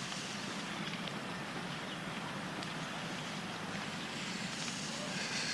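Steady outdoor background noise: an even hiss over a faint low hum, with no distinct events.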